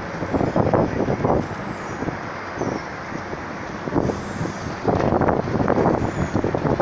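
Wind buffeting the microphone in irregular gusts, stronger near the end, over a steady low rumble.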